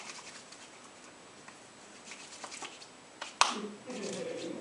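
Soft rustling and light taps of hands rubbing together in a hand-washing motion. A sharp click comes about three and a half seconds in, followed by a brief low voice.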